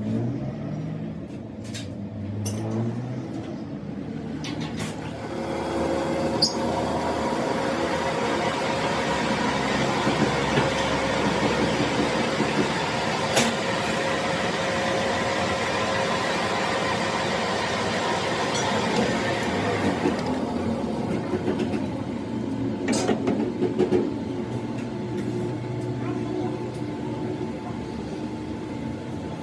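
Machine tool running with a steady whine and a noisy hiss that start about five seconds in and stop about twenty seconds in, with a few sharp clicks along the way.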